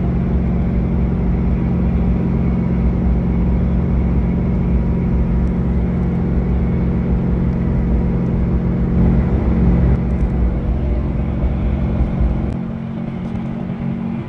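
Chevrolet Duramax turbodiesel pulling hard under a heavy towing load, heard from inside the cab as a steady engine drone mixed with road and wind noise. It gets a little quieter near the end.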